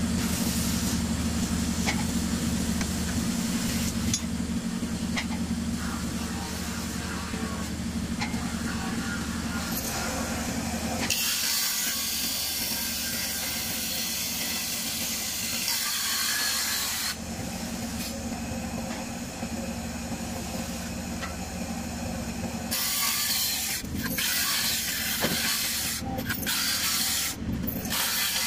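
Bench-mounted circular saw running with a steady motor hum as wooden boards are fed into the blade; the cutting adds a loud hiss about eleven seconds in for several seconds, and again from about twenty-three seconds in.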